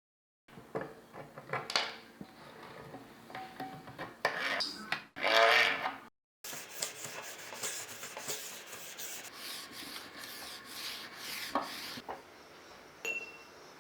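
Hand scrubbing and scraping on rusty typewriter parts, with small clicks and knocks. A short loud rub comes about five seconds in, and after a brief break dense, brisk scrubbing strokes follow until about twelve seconds, then it goes quieter with a single click.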